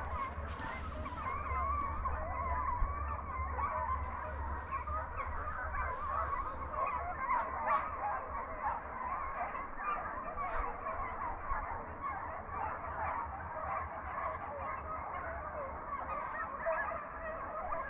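A pack of hunting hounds baying in the distance while running a deer: many overlapping voices in a continuous chorus.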